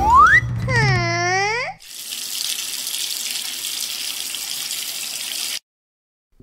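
Swooping, whistle-like cartoon sound effects over a low bass line, then water running from a tap in a steady hiss for about four seconds, cutting off suddenly.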